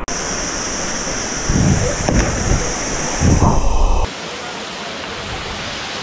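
Waterfall rushing steadily into a rock plunge pool, with a few low rumbles of wind on the microphone over the first four seconds. About four seconds in, the rush drops to a softer, duller level.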